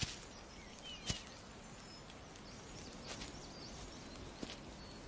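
Quiet forest ambience with a few faint, short bird chirps and occasional soft clicks or rustles, as of movement in leaf litter.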